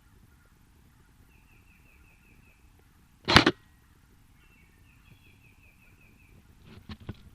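Airsoft gun firing, a single sharp crack about three seconds in and by far the loudest sound. Around it is a faint, quickly repeating chirp. Near the end comes a run of small crackling clicks like brush and footsteps.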